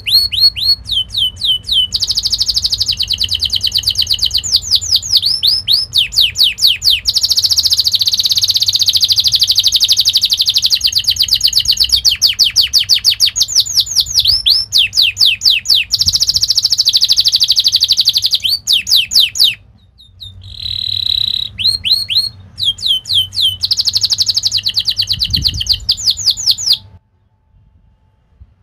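Domestic canary singing a long, fast song of trills and rolls, rapid runs of repeated whistled notes. There is a short break partway through, and the song stops abruptly near the end.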